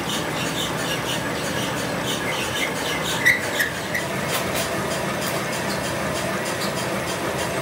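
Metal lathe turning a truck's rear axle housing tube, the cutting tool working the threaded spindle end. Over the steady running of the lathe a high squeak repeats about three times a second for the first few seconds, the sharpest about three seconds in.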